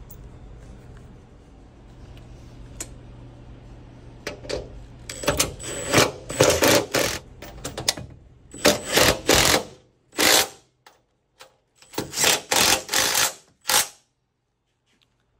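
Makita cordless impact driver hammering nuts and washers tight onto roof bolts, in several short bursts of rapid impacts in the second half, each run stopping as the nut seats.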